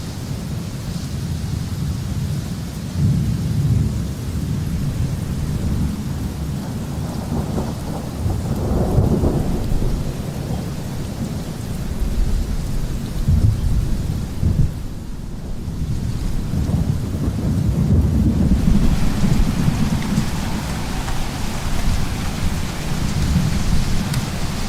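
Thunderstorm: steady rain with rolling thunder rumbling throughout, swelling louder several times.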